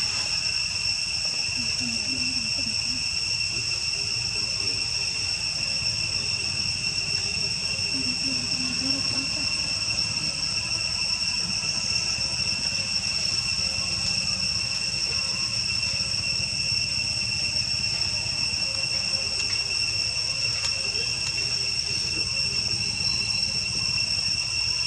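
Steady high-pitched drone of insects, holding two unbroken tones without a pause, over a steady low rumble.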